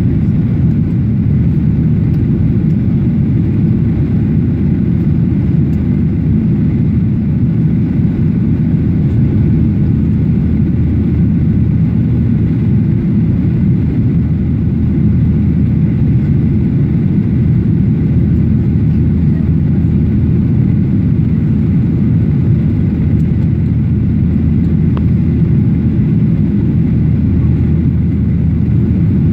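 Steady, loud low-pitched cabin noise inside a Boeing 737-800 in flight, from its CFM56-7B turbofan engines and the airflow past the fuselage, heard from a window seat over the wing. A few faint steady whining tones sit above it.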